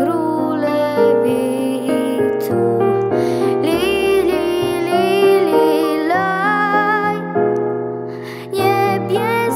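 A young girl singing a slow, gentle Polish Christmas carol over soft piano accompaniment with held chords.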